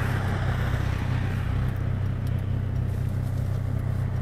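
Steady drone of a car driving, heard from inside the cabin: a constant low engine hum under even road and tyre noise.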